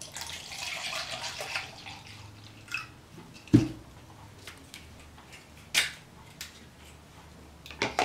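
Drain-cleaner liquid poured from a plastic bottle into a plastic measuring beaker, a trickling splash for about two seconds. Then a knock about three and a half seconds in as the bottle is set down on the table, and a few light clicks and taps after that.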